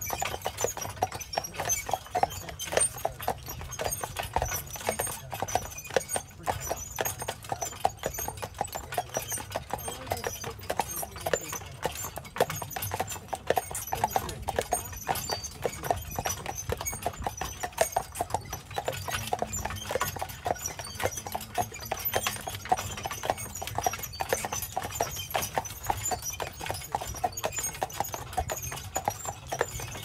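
A pair of carriage horses' hooves clip-clopping steadily on a dirt road, a rapid even patter of hoof strikes over a low steady rumble.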